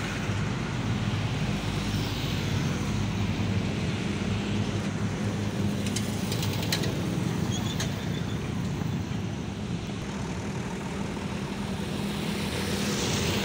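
Diesel engines of a line of Massey Ferguson tractors running steadily: a low, even engine drone, with a few faint ticks about halfway through.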